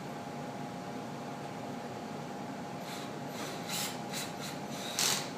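Steady background hum, then from a little past halfway a few short sharp clicks and knocks of sheet-metal parts being handled while the sandblasting cabinet is assembled, the loudest near the end.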